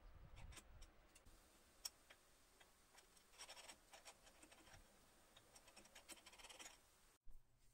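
Near silence broken by faint, scattered small clicks and taps, a few bunched together about a third of the way in and again later.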